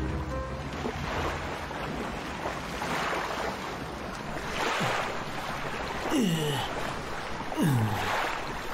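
Rough sea: waves and water splashing around a small wooden rowboat, with wind, coming in repeated swelling surges. Three short falling tones sound in the second half.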